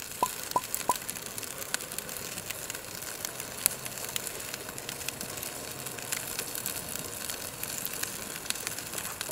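Wood campfire burning: a steady hiss with frequent small crackles and pops. Three short high pips sound within the first second.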